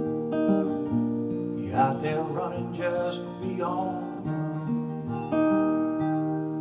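Acoustic guitar strumming the song's closing chords, with a short wavering melody over them in the middle, ending on a chord struck about five seconds in that rings out and begins to fade.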